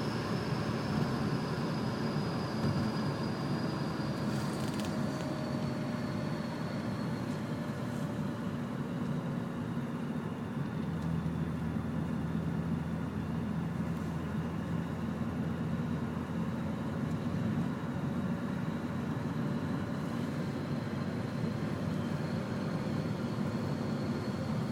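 E36 BMW M3's straight-six engine and tyre noise heard from inside the cabin while cruising at a steady speed: an even drone, with a faint high whine that slides slowly down in pitch over the first several seconds.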